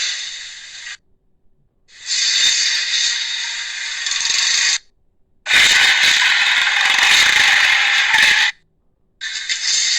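Edited dinosaur creature sound effect made from Sharptooth (Tyrannosaurus) calls from The Land Before Time IV and V: a series of harsh, hissy roars about three seconds long, each ending abruptly, with short silences between. The one in the middle is the loudest.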